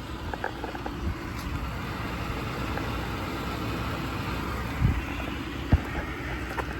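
Steady low rumble of a vehicle engine running, with a few faint clicks and two dull thumps near the end, the second the loudest.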